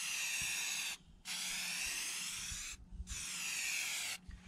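Aerosol spray paint can hissing in three passes, with short breaks about a second in and just before three seconds, and stopping shortly before the end.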